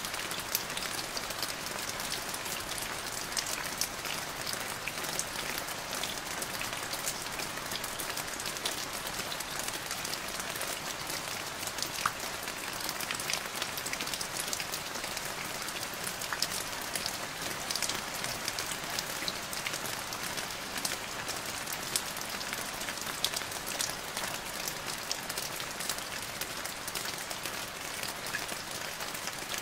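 Steady rain falling into a puddle: a dense, even hiss of drops with many separate small drop splashes standing out.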